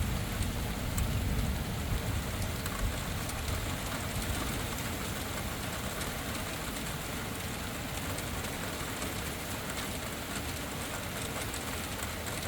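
Steady rain falling during a thunderstorm, with a low rumble of thunder dying away over the first three seconds.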